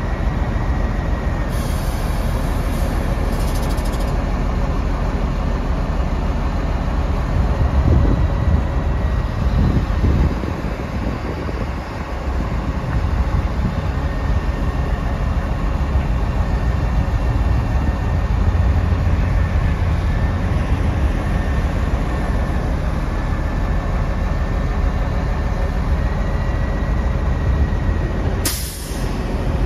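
The truck's Cummins ISC inline-six diesel running steadily to power the Prentice hydraulic grapple boom as it swings and lifts, with a faint steady whine over the low rumble.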